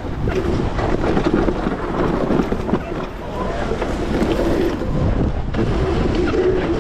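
Wind rushing over the microphone and rumble from an electric dirt bike ridden along a bumpy dirt trail, with scattered short rattles and knocks from the bumps.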